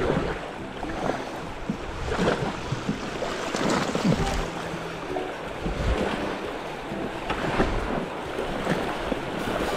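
River water splashing around an inflatable kayak on the move, with irregular louder splashes and wind noise on the microphone.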